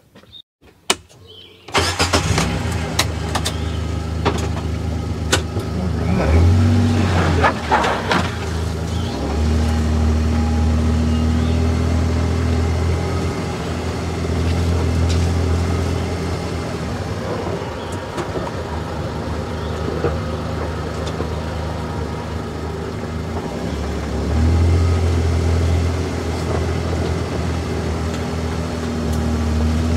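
Kawasaki Mule Pro-FXT side-by-side's three-cylinder petrol engine running as the machine drives along a dirt trail, heard from the cab. It is silent for the first two seconds, then running, and rises in pitch as it accelerates between about six and eight seconds in. A few clicks and knocks sound between two and five seconds in.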